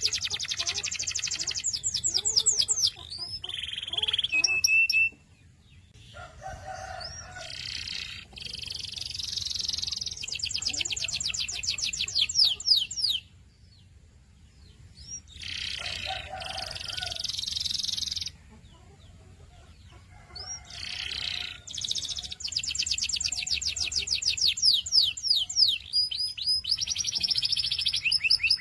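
Domestic canary singing: long, rapid trills and rolls of quick repeated high notes, in several phrases separated by short pauses.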